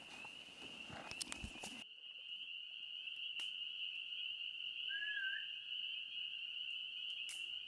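Evening outdoor chorus: a steady high-pitched trill from calling frogs or insects. There are scattered clicks and knocks in the first two seconds and a short bird chirp about five seconds in.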